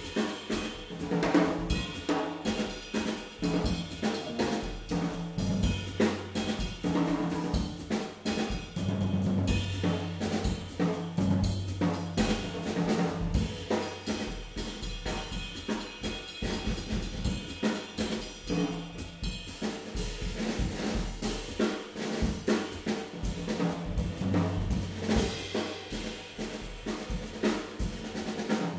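Jazz drum kit played densely, with snare hits, rolls and cymbals, over held and moving notes on an upright bass, in a jazz combo performance.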